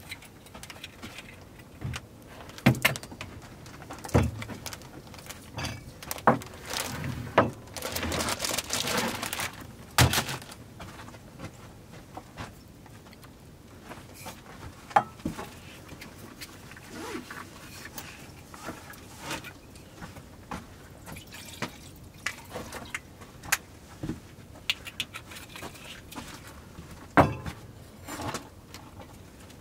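Metal camping-stove gear and gas cans handled on a wooden counter: scattered clicks and knocks as parts are fitted and set down, with a steady hiss lasting about two seconds some eight seconds in.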